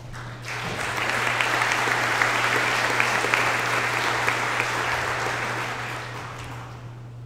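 Audience applauding in a gym. The clapping builds about half a second in and dies away near the end.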